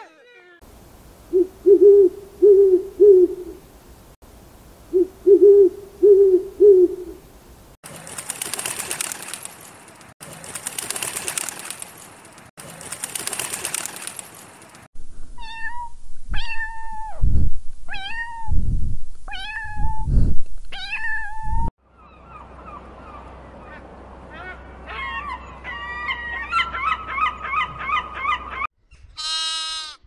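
A run of different animal calls: low hoots in two groups of four, three hissing bursts, then a domestic cat meowing several times, then birds chirping, and a lamb starting to bleat near the end.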